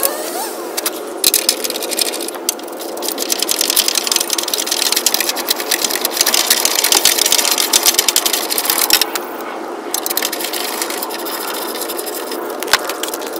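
Hand ratchet wrench clicking in fast runs as bumper bolts are turned out, stopping briefly now and then between strokes.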